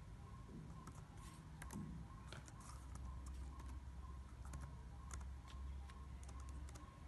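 Typing on a laptop keyboard: faint, irregular key clicks, several in quick runs with short gaps, over a steady low hum.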